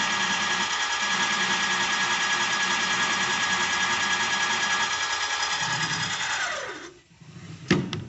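Seat-and-guide machine's spindle cutter boring a valve-seat register in an aluminum cylinder head, a steady cutting run. About six and a half seconds in, the spindle winds down with a falling whine, followed by a sharp click near the end.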